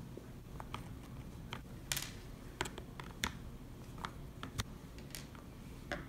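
Irregular small clicks and ticks of a screwdriver turning out the skid-plate screws on a plastic RC truck chassis, the loudest about two seconds in.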